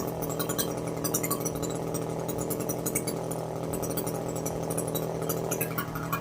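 Echo CS-400 two-stroke chainsaw engine running at a steady speed, its note holding even without rising or falling.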